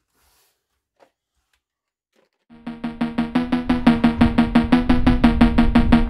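Near silence for about two and a half seconds, then background music starts with a fast, steady percussive beat over a sustained low tone.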